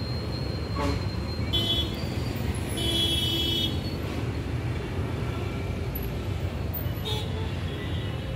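Steady rumble of road traffic with vehicle horns tooting: briefly about a second and a half in, longer around three seconds in, and again near the end.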